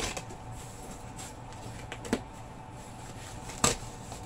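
Cardboard shipping box being opened by hand: three short sharp knocks and rustles of the flaps, the loudest about three and a half seconds in, over a steady background hum.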